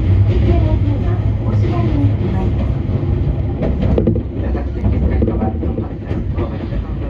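Commuter train running on the track, heard from inside the car: a steady low rumble of wheels and running gear, with a short run of clicks over rail joints about four seconds in.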